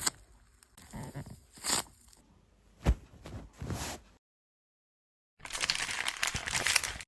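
Craft materials being handled for a homemade squishy: a few short rustles and sharp crinkles, then after a break a second and a half of dense crinkling and tearing.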